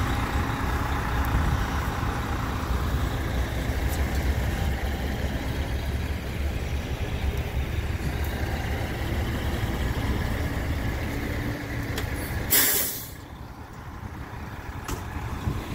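Semi-truck's diesel engine running with a steady deep rumble, then a loud, short hiss of its air brakes being set near the end, after which the sound drops.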